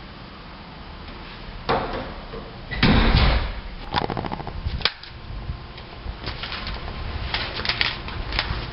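A sliding glass door rolling open with a rumble and a knock, followed by a quick run of rattling clicks that ends in a sharp click. Light tapping and rustling come after.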